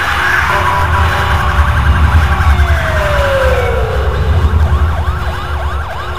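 Emergency sirens wailing over a deep, steady rumble. One long falling tone comes about three seconds in, then a fast rising-and-falling yelp repeats about two to three times a second near the end.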